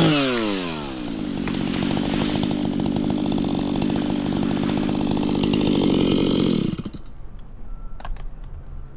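Stihl two-stroke chainsaw coming off full throttle, its pitch falling quickly to idle. It idles steadily for several seconds, then is switched off and stops abruptly near the end.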